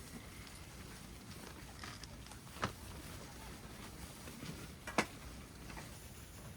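Two sharp light clicks or taps, about two and a half seconds apart, the second the louder, over a faint steady hiss.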